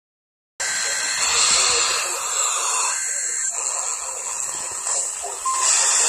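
NOAA weather radio receiver's small speaker hissing with static, starting suddenly just after the beginning. A short steady beep sounds just before the end.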